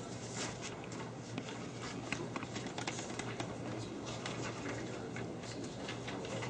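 Sheets of paper rustling and shuffling as pages are handled and turned, in irregular soft rustles over a steady low hum.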